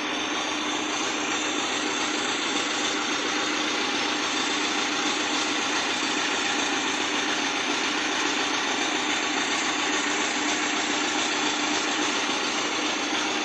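Massey Ferguson 292 tractor's diesel engine running steadily at an even speed, with no change in pitch or level. It sounds in good working order.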